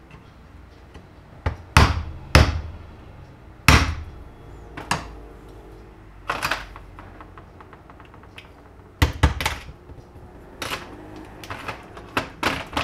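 Irregular series of about fifteen sharp knocks and thunks, some with a short ring after them, loudest around two and four seconds in: tools and parts being knocked, tapped and set down on a workbench.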